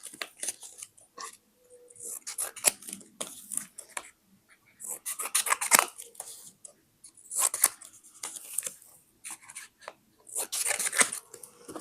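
Scissors cutting paper in runs of quick, crisp snips, with short pauses between the runs.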